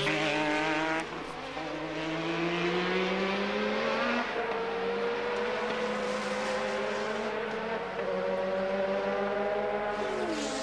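Williams-Honda Formula One car's 1.5-litre turbocharged Honda V6 pulling gently through the gears. The pitch climbs slowly, with upshifts about one and four seconds in, then falls near the end as the driver lifts off. He is short-shifting at low revs to save fuel.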